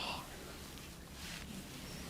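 The end of a whispered word, then a quiet pause with one faint soft hiss about a second in.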